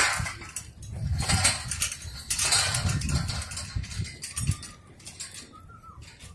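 Bundle of steel scaffold cross-braces clanking and rattling against each other as they are carried, loudest in the first few seconds and dying down after about four seconds.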